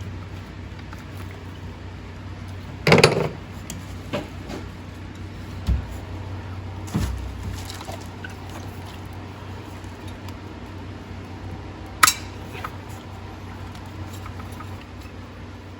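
Scattered metallic clanks and knocks of tools and engine parts being handled during an engine teardown, over a steady low hum. The loudest clank comes about 3 seconds in, and a sharp click comes near 12 seconds.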